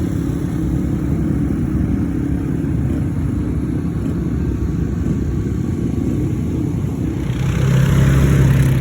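Ice-racing vehicle engines running steadily, growing louder near the end.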